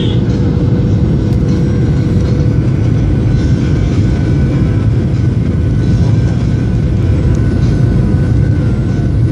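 Steady low rumble of a jet airliner's cabin during descent to land: the wing-mounted turbofan engines and the airflow, heard from inside the cabin, with a faint steady hum running through it.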